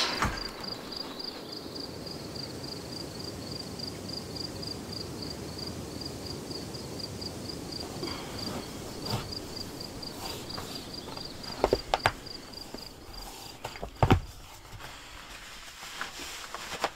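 Outdoor ambience with an insect's steady high-pitched chirp, pulsing several times a second, that stops about fourteen seconds in. A few sharp knocks come around twelve and fourteen seconds in.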